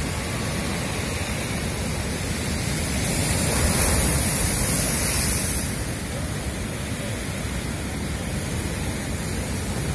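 Rough sea surf: foaming white water rushing steadily over the shore. It grows louder for a couple of seconds around the middle, as a wave breaks against rocks.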